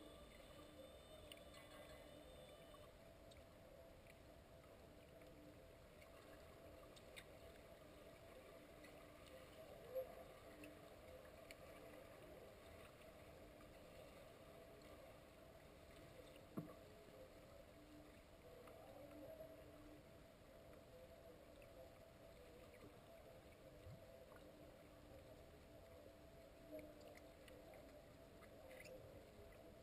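Faint, muffled underwater pool ambience picked up by a submerged camera: a steady low hum with two sharp clicks, about ten and sixteen seconds in.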